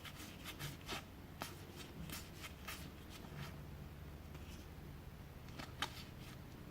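Board game cards being handled and flipped through by hand: a string of soft slides and taps, with one sharper snap near the end.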